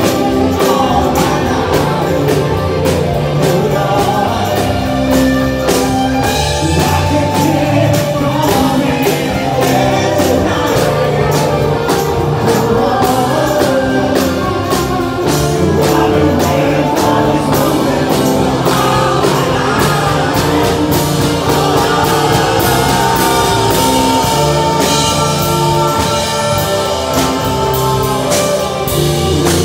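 Live rock band playing: drum kit keeping a steady beat under electric guitar, with sung vocals.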